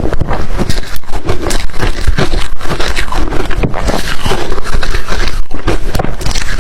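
Ice being crunched and chewed close to the microphone: a loud, fast, irregular run of cracks and crunches.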